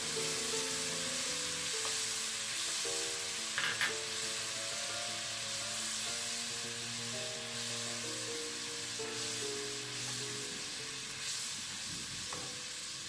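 Soy-and-oyster-sauce mixture sizzling in hot frying oil in a nonstick wok, with a lump of butter melting into it as a wooden spatula stirs it around.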